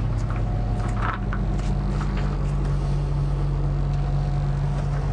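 Steady low mechanical hum of a large bus, heard from inside its cabin, with a few light knocks in the first second or so.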